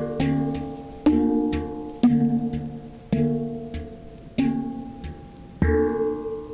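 Hang (steel handpan) played slowly by hand: single notes struck roughly once a second, each ringing out and fading, with softer notes between; the last one rings out near the end.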